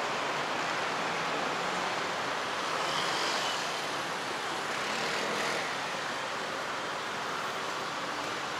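City street traffic noise: a steady wash of cars and scooters around an intersection, rising a little as vehicles pass about three seconds and five seconds in.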